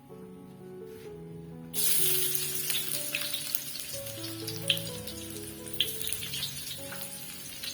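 Food going into hot cooking oil in a pan: a sudden loud sizzle starts about two seconds in and carries on with scattered crackles and pops, over background music.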